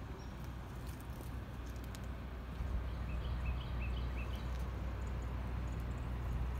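Footsteps walking over grass and dry leaves, under a low steady rumble. A bird chirps a quick run of short notes about three seconds in.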